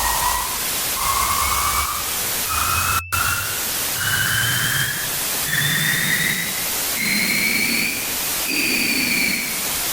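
Harsh electronic static noise with a whistling sci-fi 'alien' tone pulsing about once a second, each pulse pitched a little higher than the last so the series climbs, easing back down near the end. The sound cuts out for an instant about three seconds in.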